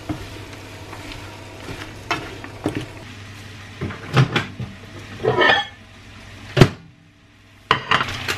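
Kitchen handling noises: a series of knocks and clatters of pans, utensils and containers being moved on a worktop, over a steady low hum. The sharpest click comes a little past six seconds.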